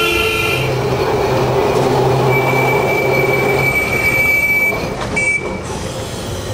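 A tram running on street track, its steel wheels squealing in a long high steady tone for a couple of seconds over the noise of the running gear.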